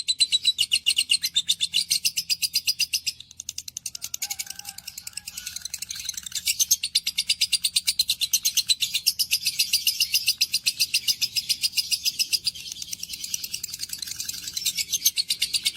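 A parrot chirping very rapidly and shrilly, about five or six short high chirps a second in a long unbroken run.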